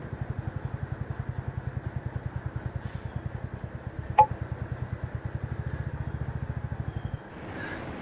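Royal Enfield Classic 350's single-cylinder engine running at low revs, an even beat of about a dozen pulses a second, with one sharp click about four seconds in. Near the end the beat stops abruptly, giving way to a steady rush of noise.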